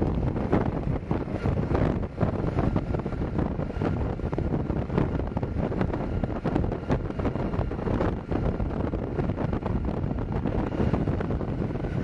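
Wind rushing over the microphone of a moving motorbike, over steady road and engine noise.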